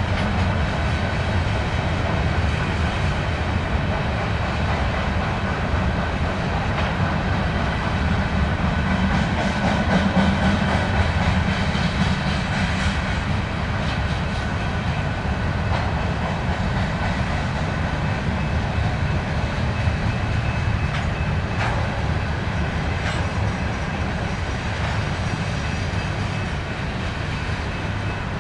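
BNSF diesel freight train rolling past: a steady, loud rumble of wheels on rail, with the clickety-clack of the passing railcars.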